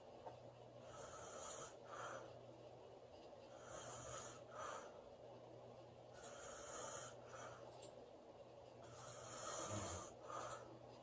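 A woman snoring in her sleep: a snoring breath roughly every two and a half seconds, four in all, with a stronger, lower-pitched snore near the end.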